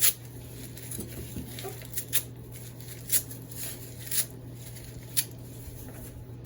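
Potting soil being scooped by hand and dropped into a planting container, giving about six brief gritty scrapes and patters roughly a second apart.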